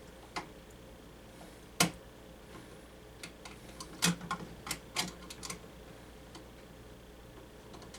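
Sharp, irregular clicks and taps of small tools against a plastic smoke detector base and its screws as the base is handled for mounting. One loud click about two seconds in, then a quick run of clicks between about four and five and a half seconds.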